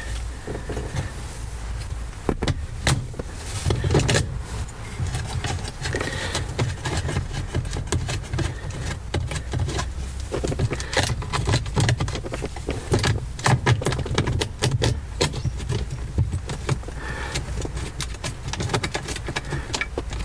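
Irregular metallic clicks and clinks of a socket driver working the bolts of the gear lever housing, over low rubbing and handling noise.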